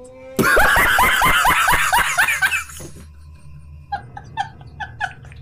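A man laughing: a loud run of quick cackles, each falling in pitch, for about two and a half seconds. About a second later comes quieter, rhythmic snickering about three times a second, over a low steady hum.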